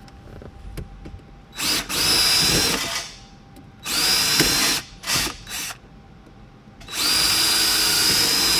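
Power drill running in several bursts as it drills out the bezel hooks on a BMW E39 factory radio. A burst comes about two seconds in, another around four seconds, then two quick blips and a longer run near the end, each with a steady high motor whine.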